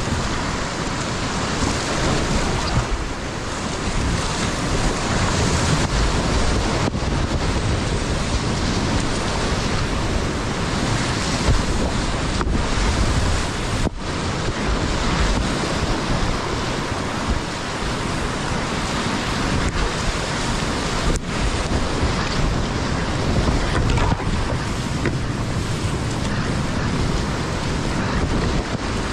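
Whitewater of a steep class 5 creek rushing and churning around a kayak, with the splash of paddle strokes and wind buffeting the microphone. A steady, dense rush throughout.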